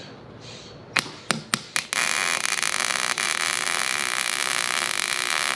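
Welding arc on a steel axle housing: a few short crackles as the arc is struck about a second in, then a steady crackling sizzle of a continuous weld bead from about two seconds in.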